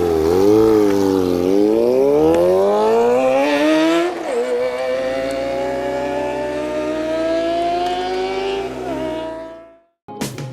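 Kawasaki ZX-25R's 250 cc inline-four engine, fitted with a DX Generation Sphere aftermarket exhaust, accelerating hard. Revs climb to a gear change about four seconds in, then climb again more slowly through the next gear before the sound fades out near the end.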